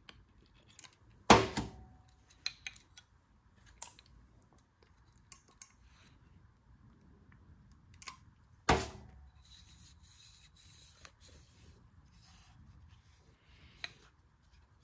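Small clicks and taps as a piston and connecting rod are handled and oiled over a metal workbench, with two sharp metal knocks about a second in and about nine seconds in, followed by a few seconds of soft scratchy rubbing.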